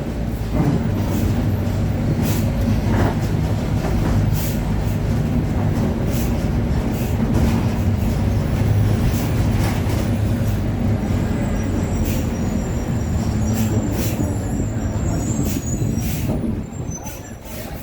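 Mercedes-Benz OF-1721 BlueTec5 city bus under way, its drivetrain running steadily with the differential growling, over many short rattles and clicks from the body. The noise dips briefly near the end.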